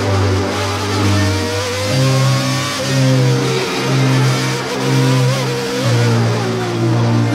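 Honda-engined Formula One car heard onboard, its engine revving up and falling back as it brakes and accelerates through slow corners. Underneath is a music track of held low chords that change twice.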